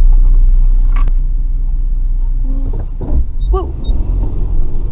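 Vehicle engine running with a low, steady rumble while driving off-road, loudest in the first second; a few short higher-pitched sounds come in about three and a half seconds in.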